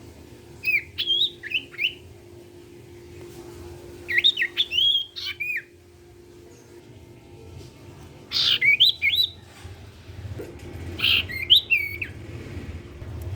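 A common iora in full song: four bursts of quick, slurred whistled chirps that swoop up and down, spaced a few seconds apart, over a faint steady hum.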